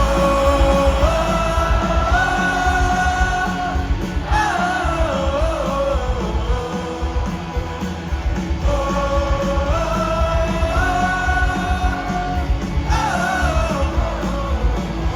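Rock music with a singing voice: a melody of long held notes stepping upward, sung twice, each phrase ending in a falling slide, over a full band.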